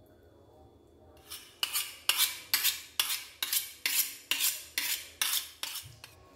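Kitchen knife being sharpened: about eleven quick metal-on-metal strokes in a steady rhythm, roughly two a second, starting about a second in and stopping shortly before the end.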